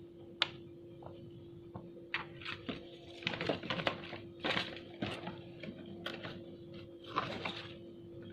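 Unboxing handling noise: a few sharp clicks, then bursts of crinkly rustling from paper and plastic packaging being handled, twice, over a steady low hum.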